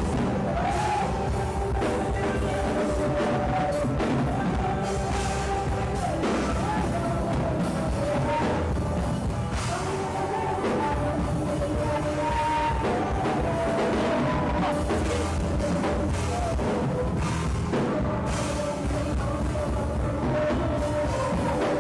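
Praise and worship music: a band with drum kit playing under a sung melody.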